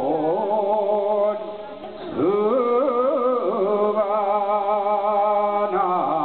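Korean Buddhist monks chanting together into microphones, drawing out long held notes. The chant falls away briefly about a second and a half in, then picks up again about two seconds in.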